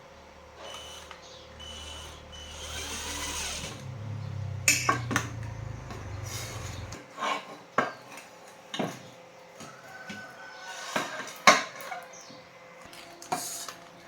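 Scattered sharp metallic clicks and knocks of tools and metal parts being handled during a repair, with a low hum that cuts off about halfway through.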